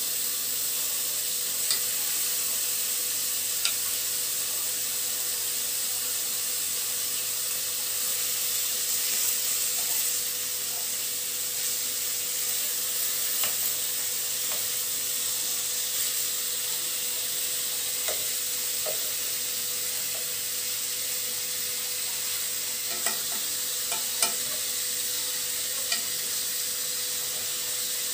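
Chunks of beef searing in butter and oil in a pot, a steady sizzle as the meat browns, with a few short clinks of a metal spoon against the pot as the pieces are turned.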